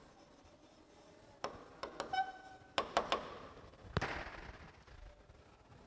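A pen writing on a board: a handful of light taps and short scrapes, with one brief squeak a little after two seconds.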